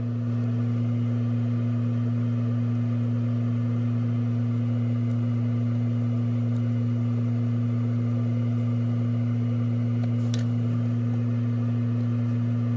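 Steady low electrical hum with a higher overtone, unchanging in pitch and level, and a faint tick about ten seconds in.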